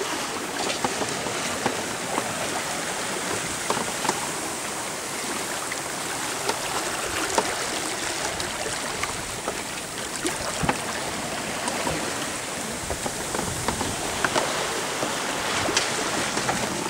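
Water rushing and splashing along the hull of a sailboat under way, a steady hiss with scattered light clicks.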